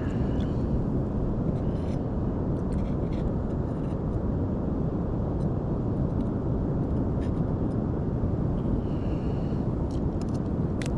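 Steady low rumbling outdoor noise of wind on the microphone and surf at the shore, with a few faint clicks and taps.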